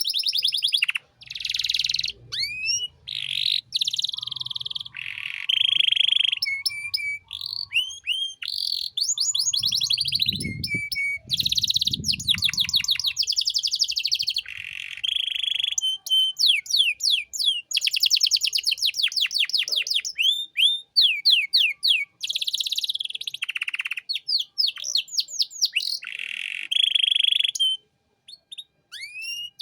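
Domestic canary in full song: rapid trills, buzzing rolls and quick rising whistled notes in fast-changing phrases with short breaks between them, pausing briefly near the end.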